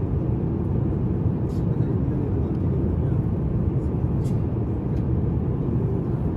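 Steady low rumble of a jet airliner heard from inside the cabin.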